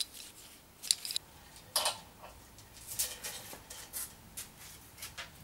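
Scattered light metallic clicks and clinks, about eight, from galvanised steel D shackles handled in gloved hands.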